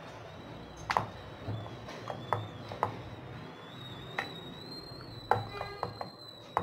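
Wooden rolling pin rolling wheat parotta dough thin on a round wooden chapati board, with a series of irregular light knocks as the pin and hands strike the board. A faint steady high tone runs behind.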